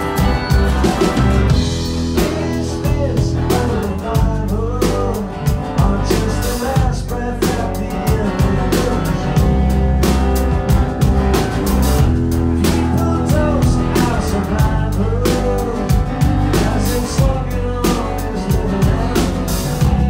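Live rock band playing a song: a driving drum-kit beat under bass guitar and strummed acoustic guitar.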